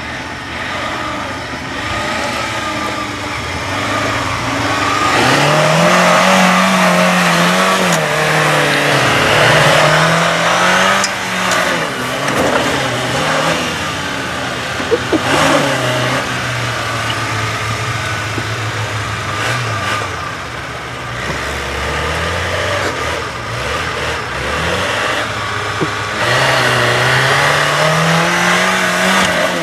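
Suzuki Samurai's engine revving up and falling back again and again as it crawls over sand mounds, with a few sharp clicks partway through.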